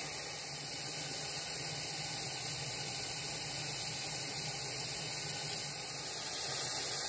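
Grated-carrot halwa frying in oil in a pot, a steady sizzling hiss: the oil has separated and risen to the top, the sign that the carrots are nearly cooked through and browned.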